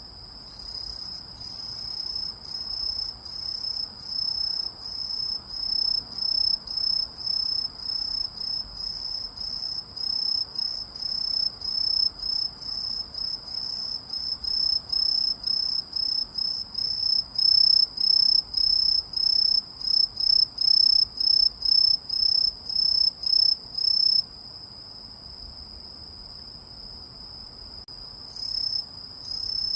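A singing orthopteran insect gives a steady series of short, high-pitched chirps, about two a second, growing louder toward the middle. The song stops about 24 seconds in and starts again briefly near the end, over a faint steady high tone.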